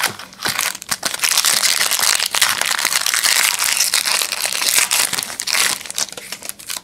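Plastic wrapper of a trading card pack being pulled open by hand, a loud, continuous crinkling crackle lasting about five seconds.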